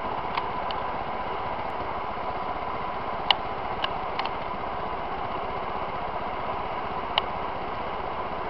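Steady mechanical hum with a faint even whine, broken by a few light clinks of a glass jug, spoon and drinking glass being handled. The sharpest clink comes about three seconds in and another near seven seconds.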